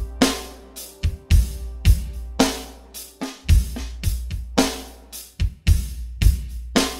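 Background music with a steady drum-kit beat, about two hits a second, over a deep bass line.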